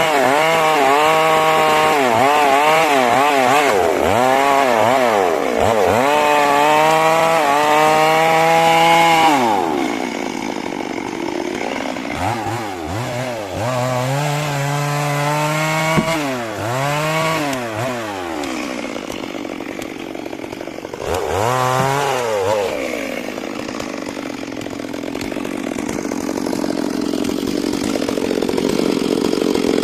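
Stihl MS 382 two-stroke chainsaw cutting into a large trembesi log, its engine pitch dipping again and again as the chain bogs down in the wood and then recovering. About ten seconds in, the revs drop and it runs lower with a few short rev-ups, then climbs back up near the end.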